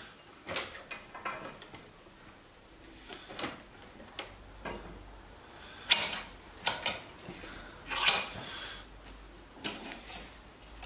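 Bench vise being worked on a clamped, sand-filled exhaust pipe: the vise screw and handle turning, with scattered metal clicks and clunks, the loudest about six seconds in, as the pipe is loosened and rolled over in the jaws.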